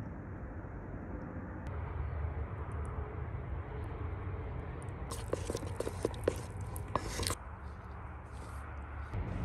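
Wet, sticky bread batter being stirred and worked in a stainless steel bowl: soft squelching and scraping, with a louder run of clicks and sticky smacks for about two seconds past the middle. A steady low rumble lies underneath.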